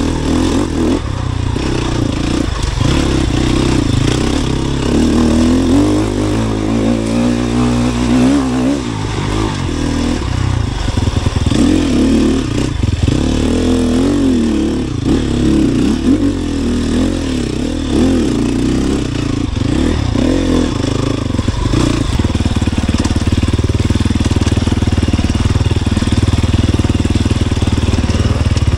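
Sherco 300 SEF single-cylinder four-stroke dirt bike engine running under load on a trail, its revs rising and falling with the throttle, with occasional knocks.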